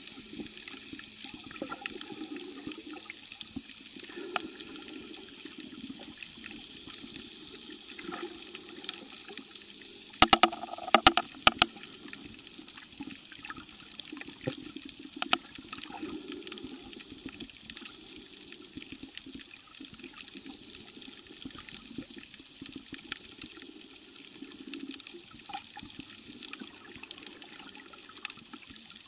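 Underwater sound picked up by a camera held below the surface: a steady muffled wash of moving water with scattered faint clicks. A quick run of loud, sharp clicks comes about ten to eleven seconds in.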